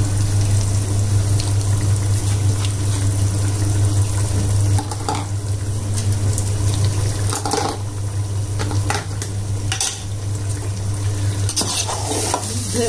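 Curry with curd on it simmering in an aluminium pot over a steady low hum, with a few sharp clinks of a metal spoon on the pot. The clinks come closer together near the end as stirring starts.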